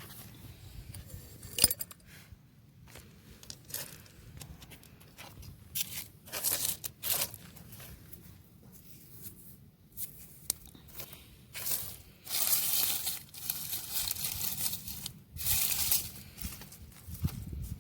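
Hands digging and scraping through soil and debris in irregular bursts, with a sharp clink near the start, like glass being knocked.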